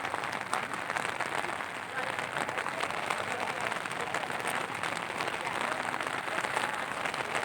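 Steady heavy rain falling, a dense even hiss of many fine drops.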